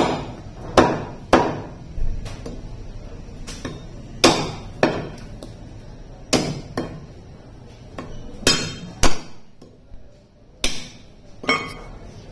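Butcher's cleaver chopping goat meat and bone on a round wooden chopping block: about a dozen sharp chops at uneven intervals, several in quick pairs.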